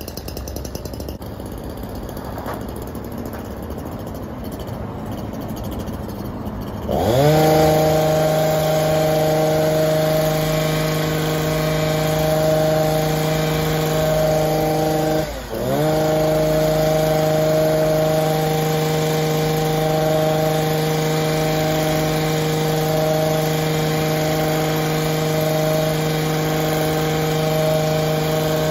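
Stihl HS 82 T two-stroke hedge trimmer running quietly at first, then about seven seconds in throttled up to a steady full-speed run as it cuts a buxus ball. It eases off briefly once about halfway through and again at the very end.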